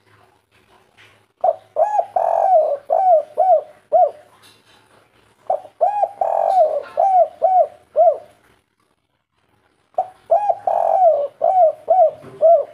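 Spotted dove (tekukur) singing its 'kuk 3' song: three phrases of quick, low cooing notes, each about three seconds long and about four seconds apart.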